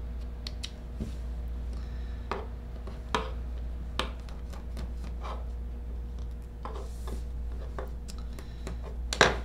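Spring-handled thread snips clipping leftover stitches from a fabric bra strap, with light handling of the fabric on a wooden table. Scattered short snips and taps about once a second over a steady low hum; the loudest is a double click near the end.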